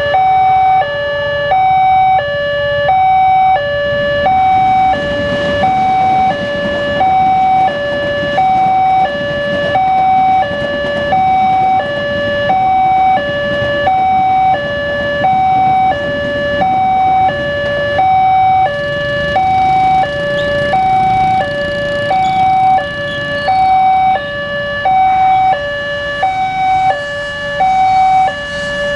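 Indonesian railway level-crossing warning alarm sounding while the barrier is down, alternating a higher and a lower tone about once a second. It stops abruptly near the end as the crossing clears.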